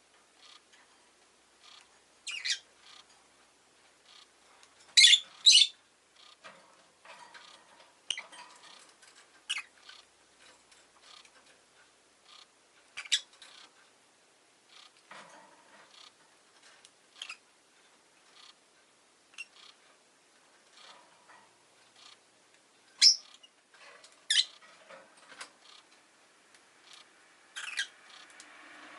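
Rosy-faced lovebird giving short, sharp chirps at irregular intervals, the loudest a quick pair about five seconds in and two more a little past the twenty-second mark, with softer chirps between.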